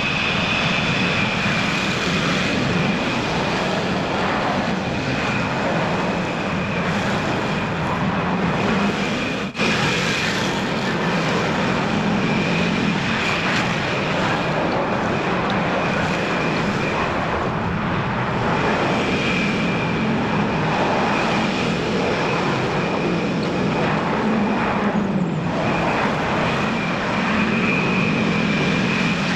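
Husqvarna TS348D lawn tractor engine running steadily while it tows a spreader, with a steady high whine over the engine noise and one brief dip about a third of the way in.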